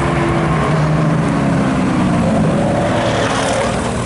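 Ferrari 360's V8 engine running at low revs as the car drives past close by, the revs climbing near the end.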